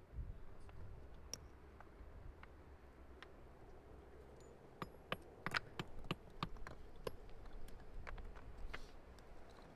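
Basalt stones knocking against one another as they are handled and set into a dry-stone wall: scattered sharp clacks, with a quick run of them about halfway through.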